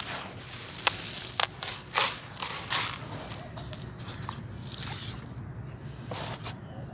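Hands digging into and crunching dry, gritty crumbled dirt in a plastic tub. There is a quick run of sharp crunches and crackles in the first three seconds, then softer grainy rustling.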